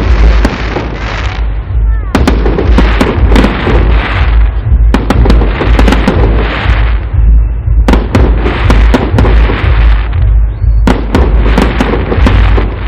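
Fireworks salute: a volley of sharp bangs about every three seconds, each followed by a couple of seconds of dense crackling noise, over a steady low rumble.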